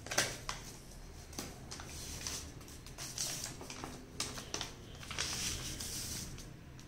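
A folded sheet of paper being unfolded and handled, rustling and crinkling in short bursts, with a longer rustle near the end as it is smoothed flat.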